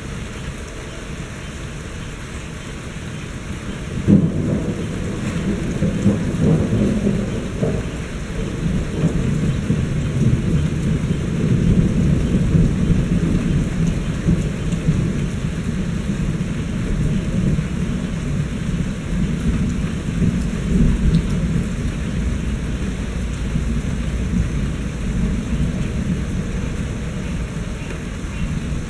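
Steady rain falling, with a thunderclap about four seconds in that rolls on as a long low rumble, slowly easing off.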